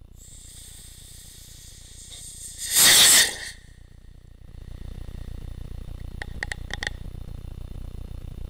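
Onboard sound of a firework rocket in flight: a high hiss, then a loud rushing burst about three seconds in. After that comes a steady low rumble of air on the microphone, with a few quick clicks in the second half.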